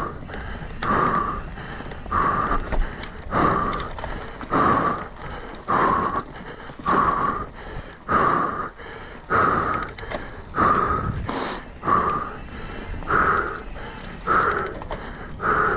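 A mountain biker breathing hard and rhythmically, a loud breath about every 1.2 seconds.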